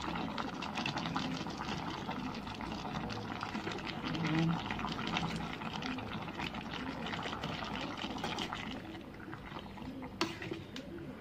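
Chicken curry liquid bubbling in a metal pan, a steady crackle of small pops, as chunks of carrot and potato are added. A spoon strikes the pan once, sharply, about ten seconds in.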